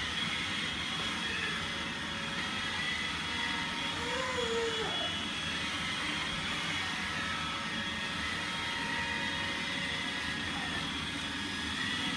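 iRobot Roomba 880 robot vacuum running, a steady whirring hum with a thin high whine over it.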